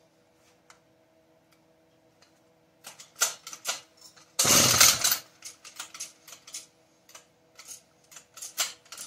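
A hard-starting chainsaw being handled for a start: scattered clicks and short rattles, with one pull of the starter cord about four and a half seconds in, and the engine does not fire.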